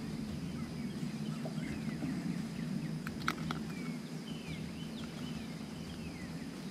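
Birds chirping in the background, short falling calls scattered throughout, over a steady low hum. A couple of sharp clicks come about three seconds in.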